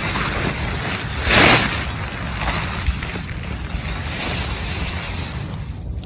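Heavy rain and wind: a steady rushing noise with a low rumble, swelling louder for a moment about a second and a half in.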